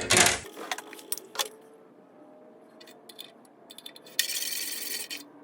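Light clicks and small metallic rattles of handling, with a short hiss lasting about a second, starting about four seconds in.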